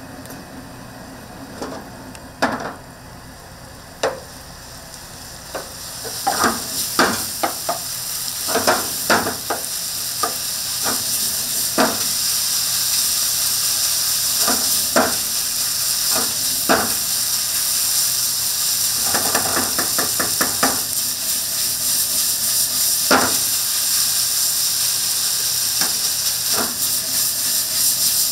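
Food sizzling in a hot frying pan while it is stirred, with sharp clicks and taps of a utensil against the pan. The sizzle starts and grows louder about six seconds in, and there is a quick run of taps about two-thirds of the way through.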